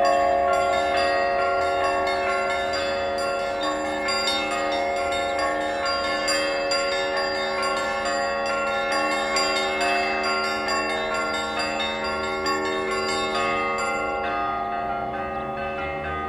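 Church bells ringing, many strokes in quick succession, each tone ringing on and overlapping the next. The fresh strokes thin out near the end while the ringing hangs on.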